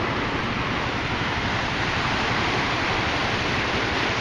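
Small ocean waves washing up over the sand at the water's edge: a steady rush of surf.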